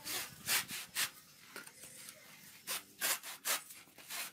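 Wooden-framed hand saw cutting through a dry whole coconut in its thick fibrous husk, in rasping back-and-forth strokes about two or three a second, with a pause of a second or so in the middle.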